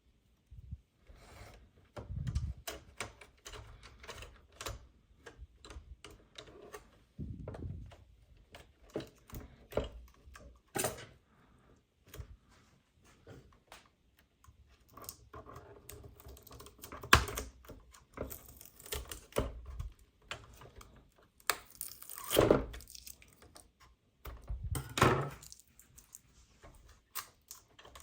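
Plastic toy parts and packaging being handled, giving irregular clicks, rattles and knocks, with a few louder thuds.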